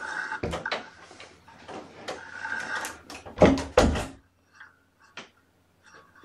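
A run of knocks, clatters and rustling, loudest with two heavy thumps about three and a half seconds in, then only a few faint clicks.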